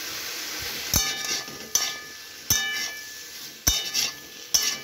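Metal spatula stirring cubed pumpkin in a metal wok, knocking against the pan five times with a brief metallic ring each time, over a steady hiss of frying.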